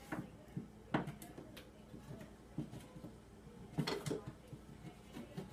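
A few light knocks and clicks, with a small cluster about four seconds in, from handling an over-the-range microwave held against the cabinet while its power cord is fed up through the hole.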